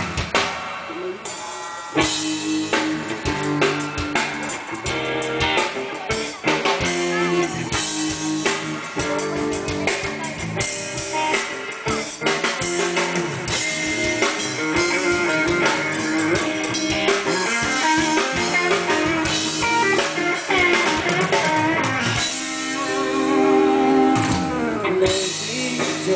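Rock band playing live: drum kit and guitar in an instrumental passage, with steady drum hits throughout and no singing.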